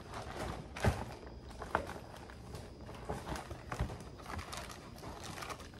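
Soft-plastic bait packs handled in and out of a zippered storage bag: scattered light knocks and clicks, loudest about a second in, again shortly after, and near the four-second mark.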